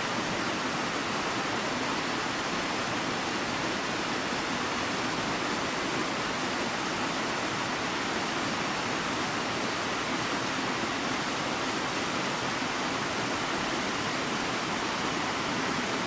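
Steady rushing of water tumbling down a forest stream's waterfalls, an even wash of noise that does not change.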